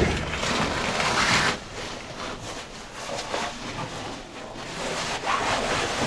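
Cavers moving through a narrow rock passage: irregular rustling and scraping of clothing and gear against rock, with a sharp knock at the very start. The scraping is heaviest in the first second and a half and again near the end, with a quieter stretch in between.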